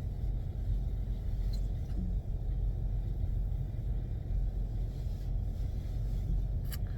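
Steady low rumble of a car heard from inside the cabin, with a single light click near the end.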